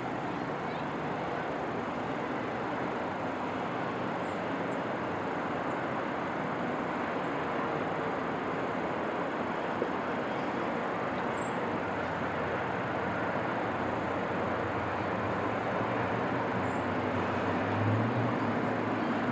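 Steady, distant traffic noise from the town below: an even hiss with a low rumble that swells briefly near the end.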